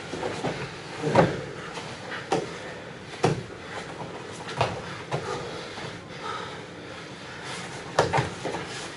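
Grappling on foam mats: irregular thuds and scuffles of bodies, hands and feet hitting and sliding on the mats, with the loudest thuds about a second in and near the end.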